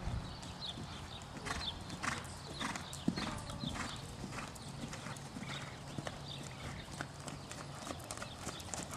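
Hoofbeats of a ridden horse cantering on a sand arena, a run of soft, uneven thuds.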